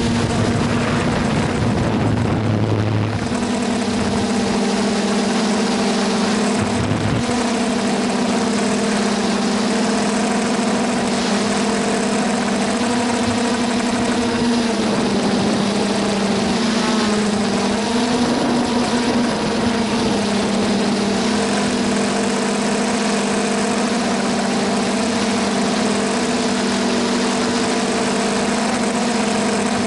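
Quadcopter's four 880Kv brushless motors and 9-inch propellers buzzing steadily in flight, heard from the onboard camera over a rushing noise from the propeller wash. The pitch wavers slightly as the motors adjust their speed.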